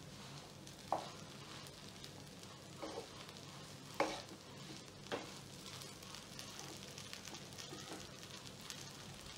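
Idli and bread pieces frying gently in oil in a frying pan, stirred and tossed with a spatula: a faint steady sizzle with a few knocks of the spatula against the pan, the loudest about four seconds in.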